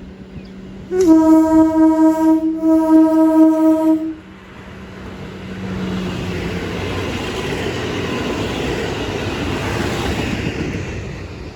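Train horn sounding a single note in two blasts that almost run together, starting about a second in and lasting about three seconds, with a faint steady engine hum beneath. Then the rumble of the passing train's wheels on the rails swells up and holds.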